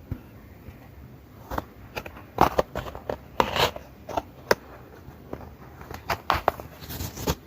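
Irregular crinkling, rustling and clicking of an album's paper and plastic packaging being handled and unpacked.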